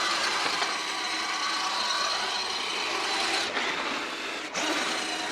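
Axial SCX10 Deadbolt RC truck on a 3S LiPo, its electric motor and drivetrain whining steadily as it spins donuts in snow, with the throttle easing off briefly twice in the second half.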